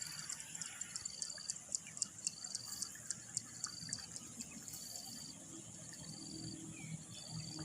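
Crickets chirping outdoors: short, high trills that repeat about once or twice a second, over a faster, steady ticking higher up.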